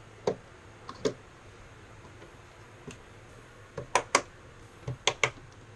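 Sharp plastic clicks, about seven in all and the loudest a close pair about four seconds in: RAM sticks being pressed into a motherboard's memory slots, the slot latches snapping shut.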